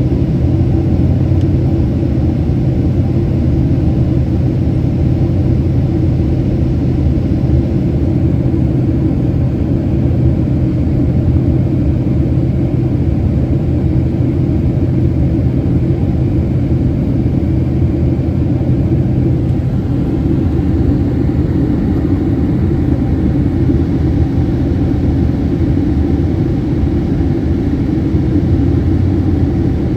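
Steady low rumble of a Boeing 767-300 airliner cabin in flight, the constant roar of airflow and engines with a low hum, shifting slightly about two-thirds of the way through.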